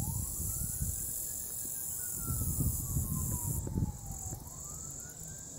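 A far-off siren wailing, its pitch rising and falling slowly, about one full sweep every four seconds. Insects trill steadily underneath, with low rumbles of wind or handling on the microphone.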